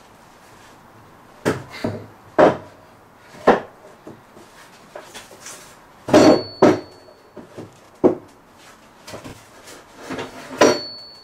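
Heavy wooden scaffold boards being tipped over and laid flat onto metal bar clamps: a string of about seven wooden knocks and thuds. Two of the knocks are followed by a brief metallic ring.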